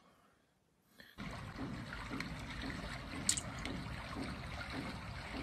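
Steady trickling water sound from a fish-catching game for cats on a tablet, starting about a second in. There is a single sharp click about two seconds later.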